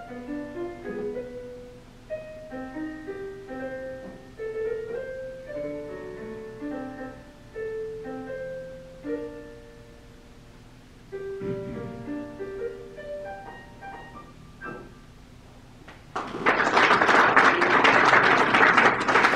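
Piano playing the closing instrumental bars of a slow song, the notes dying away about fifteen seconds in. About a second later an audience breaks into applause, louder than the music.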